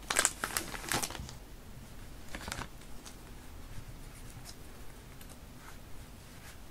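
Clear plastic packet crinkling as it is handled, sharp crackles in the first second and again briefly around two and a half seconds in, followed by soft rustling of small paper strips being leafed through by hand.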